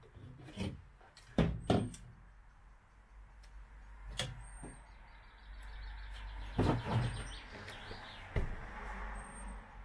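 Several sharp knocks and clunks, with rustling handling noise in the second half: parts and tools being handled while fitting pieces to the van's window frame.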